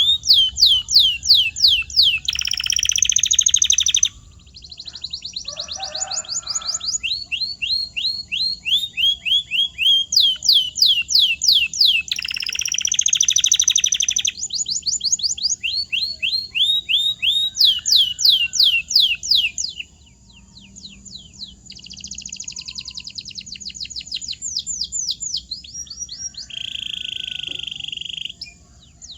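Domestic canary singing a long song: runs of rapid, repeated down-sweeping whistled notes, broken three times by short dense buzzy rolls.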